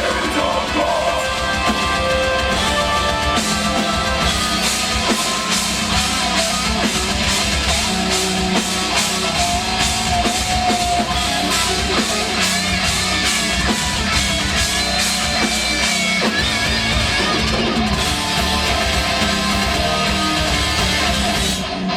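A metal band playing live: distorted electric guitars, bass and drum kit, with a fast, steady drum beat through the middle and a short break just before the end.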